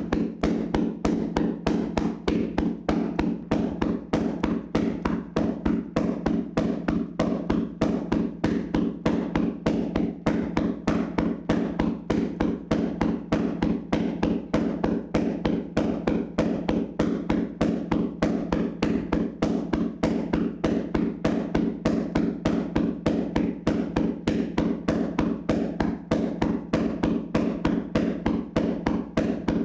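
Hands slapping and tapping on a person's body in a vigorous percussive massage: a fast, even rhythm of dull strikes, several a second, without a break.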